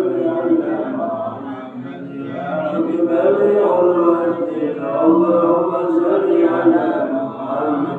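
The husky, hoarse voice of a male imam chanting the Arabic morning dhikr (wirid) in long, held melodic phrases, with a short pause for breath about two seconds in.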